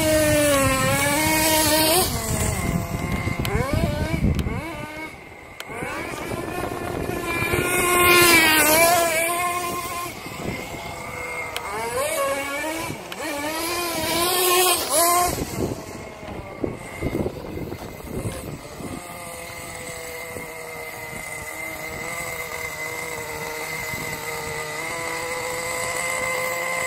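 Radio-controlled drift car's motor whining, its pitch swinging up and down again and again as the throttle is worked through slides. After about two-thirds of the way through it settles into a steadier tone that climbs slowly.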